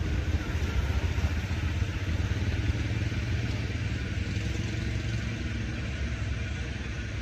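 A small engine running steadily at low revs, its low hum easing off slightly toward the end.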